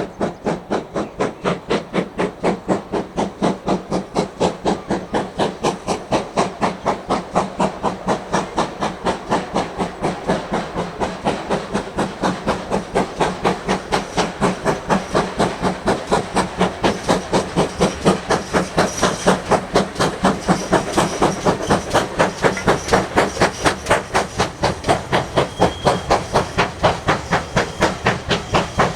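Steam locomotive working steadily, its exhaust chuffing in an even rhythm of about four beats a second.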